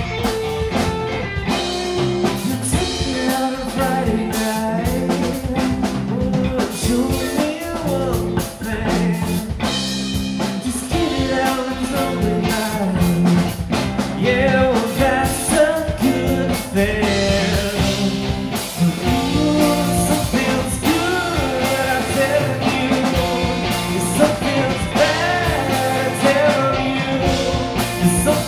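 Live rock band playing: two electric guitars, bass guitar and drum kit in a continuous full-band groove.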